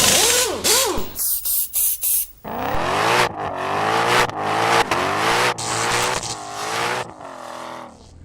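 A car engine revving hard, its pitch rising and then rising and falling repeatedly, with tire squeal at the start, in several short clips that cut off abruptly.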